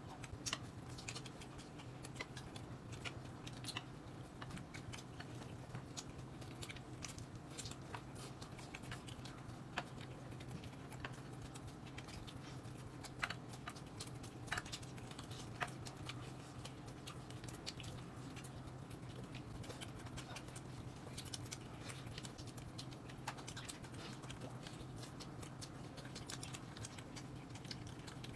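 A person eating, chewing food with soft scattered mouth clicks and smacks, over a faint steady hum.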